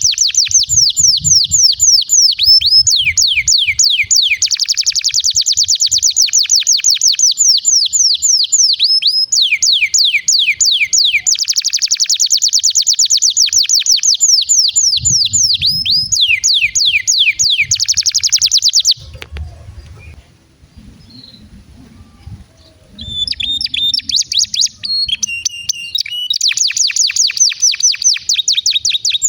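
Domestic canary singing long, rapid rolling trills of fast repeated high notes. The song breaks off about two-thirds of the way through for a few seconds, then resumes with a few varied notes and more fast trills.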